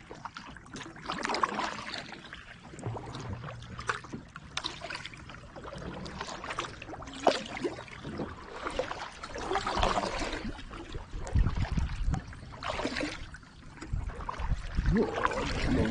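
Kayak paddle strokes in calm water, a swishing pull every couple of seconds, with a few dull low bumps in the last few seconds.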